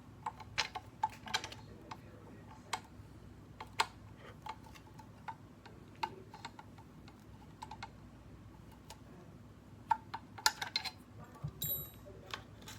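Irregular light clicks and taps, with a cluster of them about ten seconds in and a brief high ringing tone just after.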